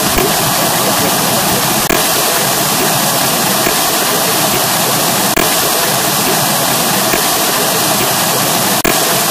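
Loud, steady rushing noise like static, with brief clicks about two, five and nine seconds in.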